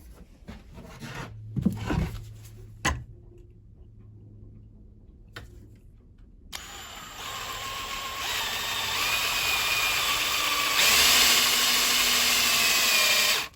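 A few knocks of handling, then a power drill running for about seven seconds, its whine growing louder in steps as it bores, and stopping suddenly near the end. The owner says this drill is dying.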